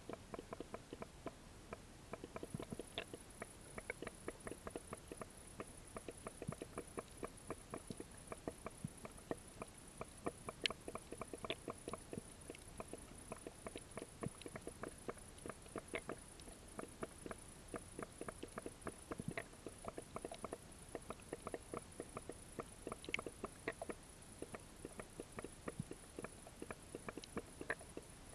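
Underwater ambience over a shallow seagrass bed: a steady crackle of sharp, irregular clicks, several to many a second, over a low hiss.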